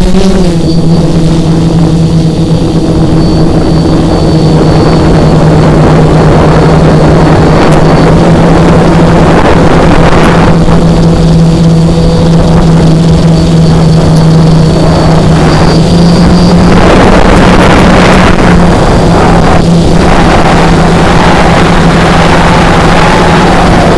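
Tricopter's brushless motors (Emax XA2212 980 kV) and propellers running loud, close to the microphone. There is a steady hum that rises in pitch at the very start as it lifts off, over a rush of prop wash and wind noise that swells and eases with the throttle.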